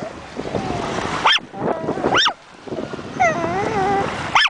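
Long-haired chihuahua barking at breaking waves in short, sharp, high yaps. There are three of them: about a second in, about two seconds in, and just before the end.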